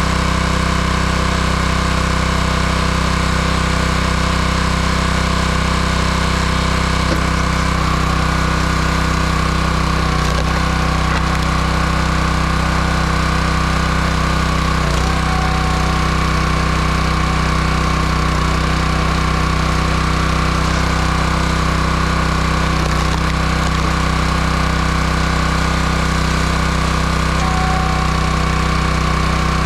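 Wood splitter's small engine running steadily at constant speed while splitting firewood.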